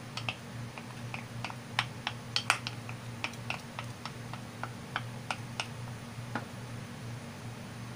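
Wooden spoon clicking and tapping against the side of a pot while stirring soup, a few light irregular clicks a second that stop about six seconds in. A steady low hum runs underneath.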